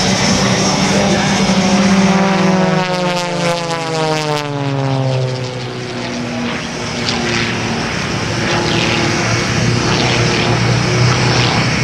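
Single-engine aerobatic propeller plane's piston engine and propeller droning. The pitch falls steadily over a few seconds as the plane passes, then holds a steady lower engine note as it flies away.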